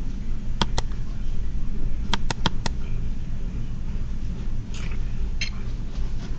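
A steady low hum with sharp clicks: two about half a second in, four more in quick succession around two seconds in, and two brief hissy bursts near the end.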